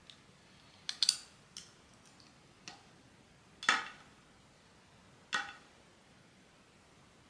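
Blind-box unboxing handling sounds: about seven short, sharp clicks and knocks of small hard plastic pieces, irregularly spaced, the loudest about three and a half seconds in and another just after five seconds.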